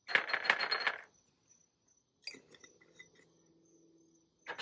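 Dried spices poured into a glass jar, rattling and clinking against the glass. There is a burst about a second long at the start, another at the very end, and a few light clicks in between.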